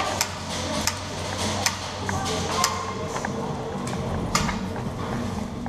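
Scattered sharp clicks and knocks in an indoor airsoft arena, about four over a few seconds, over a steady low hum with faint music.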